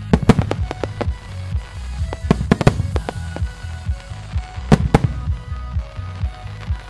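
Aerial fireworks shells bursting in quick succession, a dense run of loud bangs with the loudest pair just under five seconds in. Music plays underneath.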